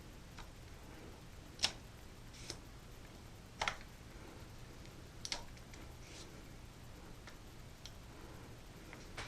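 Scattered sharp plastic-and-metal clicks, roughly one every second or so, with the loudest near 1.6 and 3.6 seconds: a SLIK Mini II mini tripod being handled as its legs are extended.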